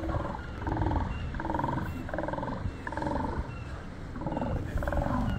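A group of Steller sea lions barking over one another, a call about every second, some deeper and some higher.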